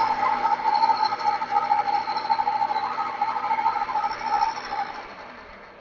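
Milling machine running, a small end mill cutting into a metal workpiece with a steady whine; the sound dies away near the end as the spindle stops.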